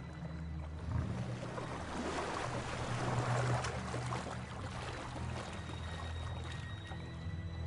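Water splashing and sloshing as a lion swims through a river, loudest a couple of seconds in. A low steady drone of background music runs underneath.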